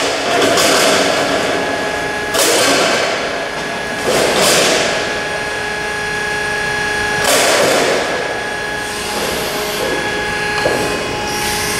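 A long painted sheet-metal panel being slid and pushed into position on a long folder's bed: a few scraping rushes of metal on metal a couple of seconds apart, over a steady hum.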